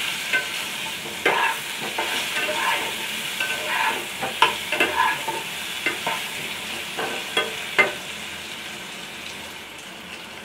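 Whole boiled potatoes sizzling in hot oil in a nonstick kadai while a steel spatula stirs and turns them, with scattered scrapes and clinks against the pan. The stirring stops near the end, leaving a quieter sizzle.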